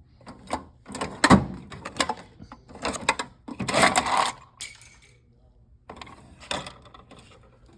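Metal drill index cases being handled: a string of sharp clicks and clanks of metal lids and drill bits clinking together, with a dense burst of rattling about four seconds in and a short lull before a few more clicks.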